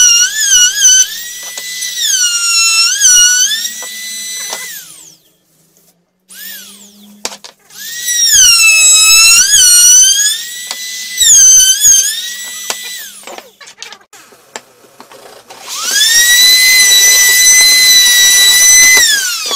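Handheld electric trim router running with a high-pitched whine whose pitch dips again and again as it bites into the wood. It is stopped and restarted several times, runs free at a steady pitch in its last run, and winds down with a falling whine at the end.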